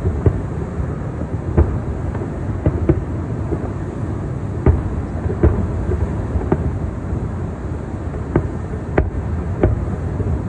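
Distant aerial fireworks shells bursting: about ten sharp booms and cracks at irregular intervals over a steady low rumble.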